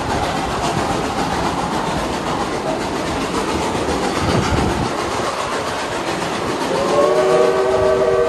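Passenger train rolling over the rails behind Reading & Northern 425, a Baldwin 4-6-2 Pacific steam locomotive. About seven seconds in, the locomotive's steam whistle starts a steady chord of several tones.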